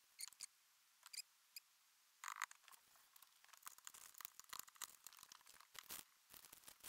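Faint handling sounds: a few light rattles of a spice shaker in the first couple of seconds, then a short louder rustle and a run of soft ticking and crinkling as a plastic vacuum-seal bag is handled.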